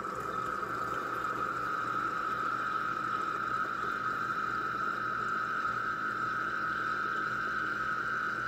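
Small drip coffee maker starting to brew, its heating element pushing the water through with a steady hiss.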